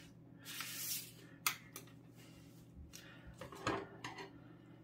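Paper rustling and sliding as a folded paper boat is lifted off a paper sheet, with a sharp click about a second and a half in and a few more soft knocks and rustles later on.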